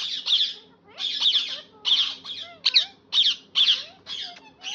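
Indian ringneck parakeet giving a rapid series of short squawks, about two a second, with brief pauses between them.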